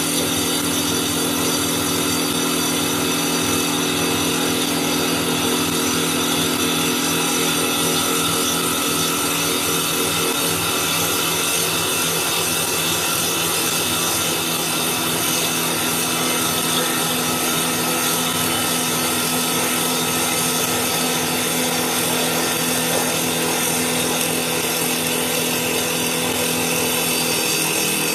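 CNC wood lathe's motor-driven saw blade cutting a wooden baseball bat blank as it spins at 2000 RPM on the final shaping pass: a steady sawing noise with a constant motor hum underneath.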